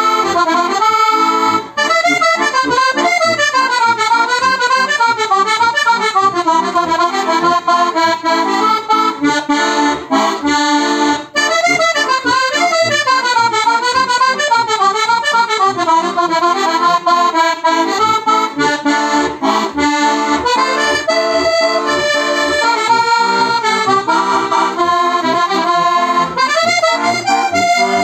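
Heligonka, a diatonic button accordion tuned in C/F with tipo a mano reeds, playing a lively Roma folk tune. Quick melody runs on the treble buttons sound over a steady pulsing bass.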